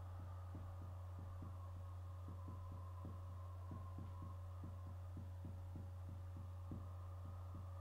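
Steady low electrical hum with a faint higher steady tone, and faint soft ticks a few times a second.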